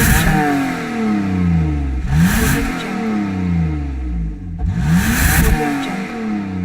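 BMW 325i's straight-six engine being revved: a rev dies away at the start, then the engine is run up quickly and allowed to fall back slowly twice more, about 2 and 5 seconds in.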